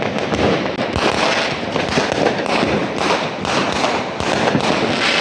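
Many New Year's fireworks and firecrackers going off at once, a dense unbroken run of bangs and crackles from many directions.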